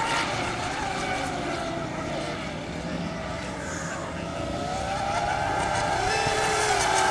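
Radio-controlled racing catamarans running flat out on the water: several high motor whines overlapping and sliding up and down in pitch as the boats race and turn the buoys, over the hiss of spray. The sound grows louder near the end as the boats come closer.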